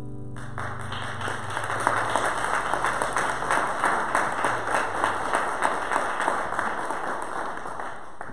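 A guitar's last chord dies away, then a small group of people clap for several seconds, closing the band's song.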